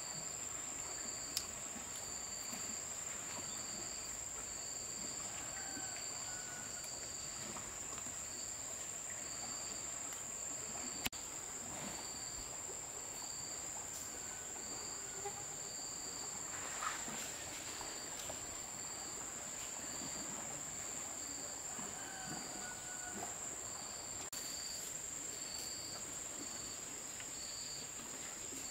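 Insects calling: a steady high-pitched trill throughout, with a second insect, cricket-like, chirping evenly about one and a half times a second beneath it. A couple of brief sharp clicks break in, one a second or so in and one about eleven seconds in.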